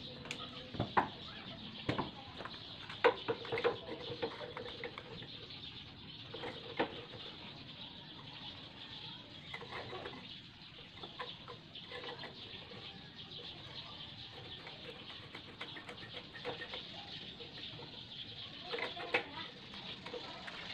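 Scattered sharp metal clinks and knocks as a motorcycle front fork tube is handled and slid back up into the triple clamps, the loudest about a second and three seconds in, over a steady faint background hiss.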